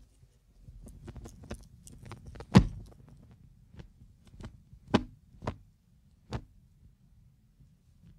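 A series of irregular sharp knocks and clicks over a faint low rumble, the loudest about two and a half seconds in, then three more strong knocks between five and six and a half seconds.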